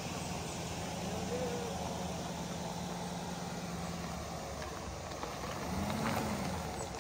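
Chevrolet Silverado pickup's engine running at low speed while towing a travel trailer, a steady low hum that fades about four seconds in.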